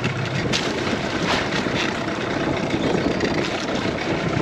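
Boat engine running steadily at low speed, kept going to hold the boat against a strong current, with a couple of brief clicks over it.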